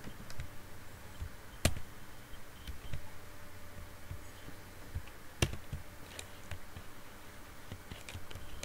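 Computer keyboard keystrokes: scattered single key clicks, two of them louder (about one and a half seconds in and about five and a half seconds in), over a faint steady hum.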